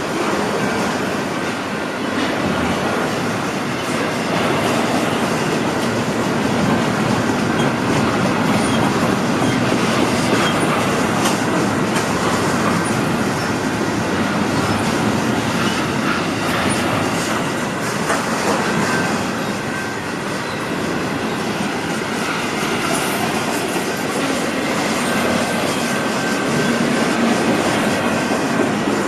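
Intermodal freight train cars rolling steadily past at close range, wheels clicking over the rail joints with a faint high wheel squeal at times.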